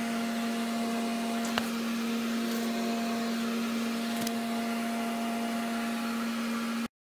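Steady machine hum at one pitch with overtones, with two light clicks, one about a second and a half in and one about four seconds in.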